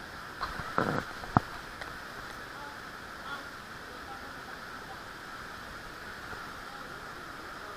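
Steady rush of canyon water and waterfall, with a short splash about a second in as a canyoneer drops into the pool, followed by a sharp knock.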